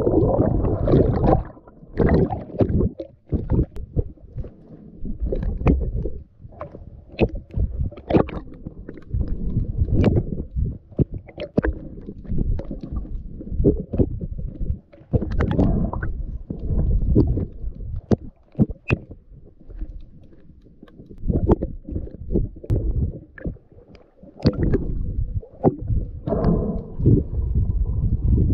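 Underwater sound picked up by an action camera in its waterproof housing: a low, muffled rumble of moving water that surges and fades, with many irregular clicks and knocks.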